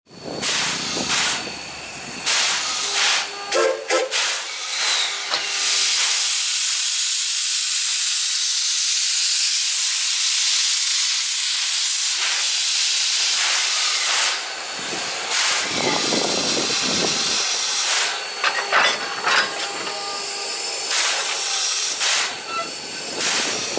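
JNR Class C11 steam locomotive hissing loudly as it lets off steam, the hiss steady for several seconds in the middle and coming in shorter gusts before and after, with scattered knocks of work on the engine.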